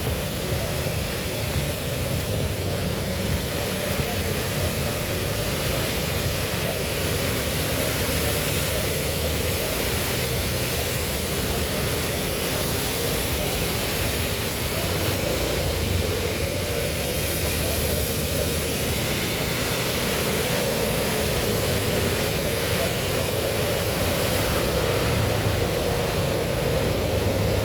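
Heavy rain falling, a steady dense hiss without a break.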